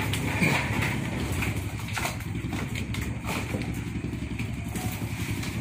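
A steady low engine hum, with occasional sharp clicks and knocks from live mud crabs and plastic crates being handled.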